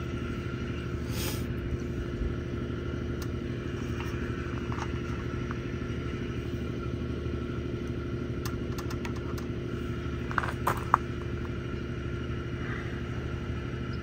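Steady drone of a running engine, with a few short metal clicks a little past the middle as a banana plug is pushed into an antenna's radial plate.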